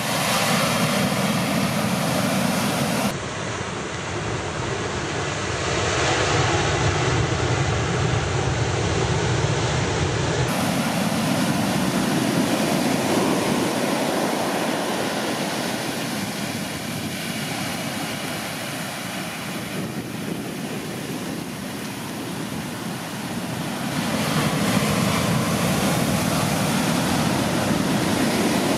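Large storm-swell waves breaking hard close to shore and washing up the beach: a steady, loud rush of surf. The sound changes abruptly about three and ten seconds in.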